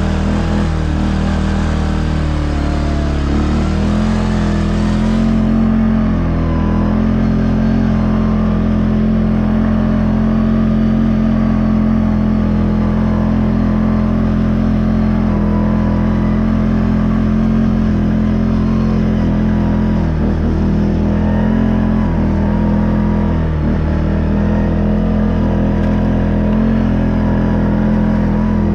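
CF Moto 520S ATV's single-cylinder engine running steadily under way, its pitch rising about four seconds in and easing off briefly twice in the second half.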